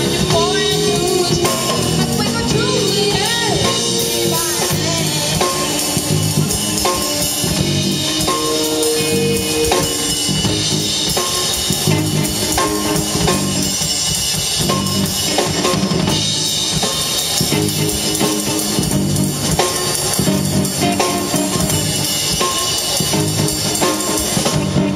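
Live jazz combo of electric guitar, electric bass and drum kit playing a jazz standard, with the singer's voice only in the first few seconds, then instrumental.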